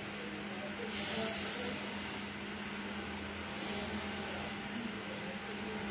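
Breath blown hard through a plastic drinking straw onto wet paint, hissing in two long blows, the first about a second in and the second past the middle. A steady low hum runs underneath.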